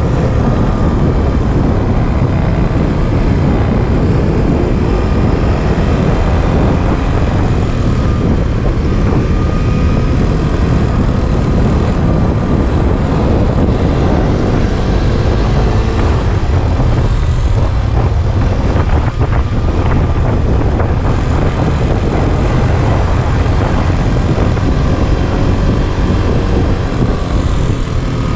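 Trail motorcycle engine running steadily as the bike rides along a forest road, its pitch shifting a little with the throttle, over a rush of wind and road noise.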